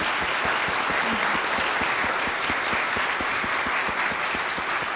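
A congregation applauding: many people clapping steadily.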